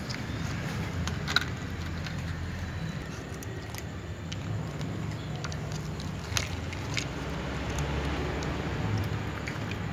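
Cats crunching dry kibble out of plastic cups: a scatter of small irregular crunches and clicks over a steady low rumble.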